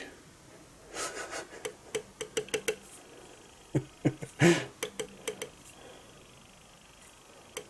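Light clicks, taps and brief scrapes of a metal surface gauge and test indicator being handled and repositioned, with quick runs of small knocks between quiet gaps.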